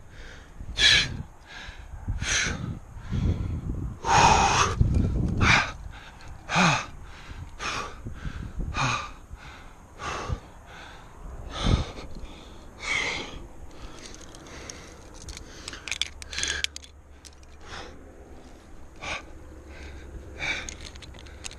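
A rock climber breathing hard with exertion on a lead climb: loud sharp breaths and gasps every second or two, close to the microphone.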